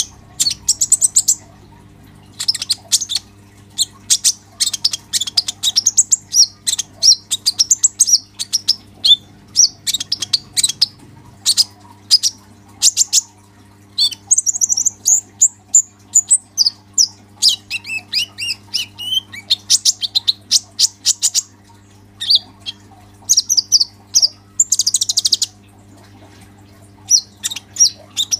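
Male kolibri ninja sunbird singing hard in full song: long runs of rapid, high-pitched twittering chirps and trills, broken by a few short pauses.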